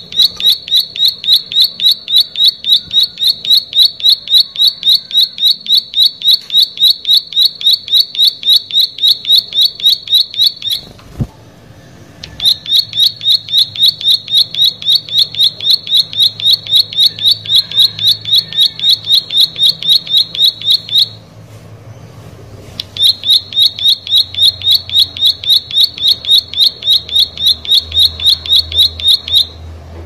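Plain prinia (prenjak sawah) singing a long, rapid run of evenly repeated high notes, about five a second. The song comes in three bouts, breaking off briefly about eleven seconds in and again about twenty-one seconds in.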